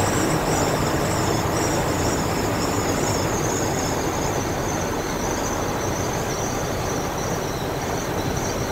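Steady road and engine noise inside the cab of a 1968 International Harvester 1100D pickup with a 345 V8 and automatic, cruising at highway speed, with a thin wavering high whistle on top. The noise eases gradually as the truck slows off the throttle.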